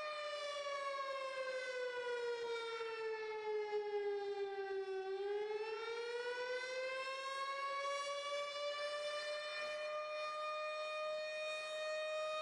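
A siren wailing: one long tone that sinks slowly in pitch over the first five seconds, rises back over the next four, then holds steady.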